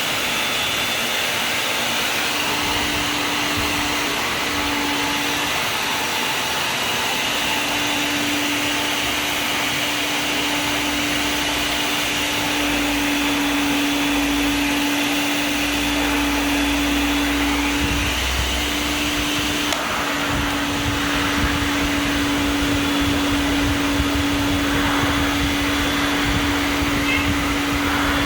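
Vacuum cleaner running steadily, its motor giving an even hum over a constant rush of air.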